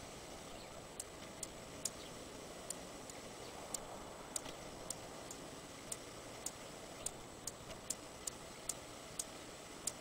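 Hummingbird giving sharp, high chip calls at uneven intervals, about one to two a second, over a faint steady hiss.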